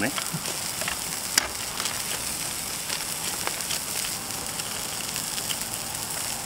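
Lamb chops sizzling over a grill fire: a steady hiss with scattered small crackles and pops, and one sharper click about a second and a half in.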